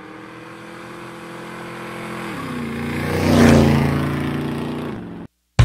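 Motorcycle engine sound effect passing by, growing louder to a peak about three and a half seconds in and then fading. Its pitch drops as it goes past, and it cuts off abruptly about five seconds in.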